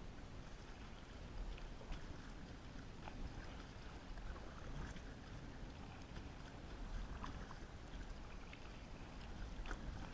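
Double-bladed kayak paddle dipping into the water stroke by stroke, with small splashes and drips off the blades, over a steady low rumble.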